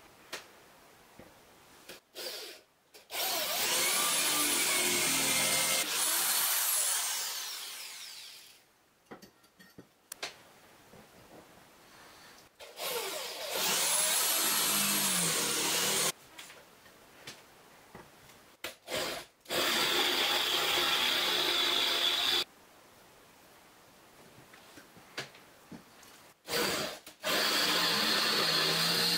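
Cordless drill boring through the metal leaf of a door hinge in four runs of a few seconds each, its motor whine rising and falling in pitch. The first run trails off as the motor winds down. Short handling clicks come between the runs.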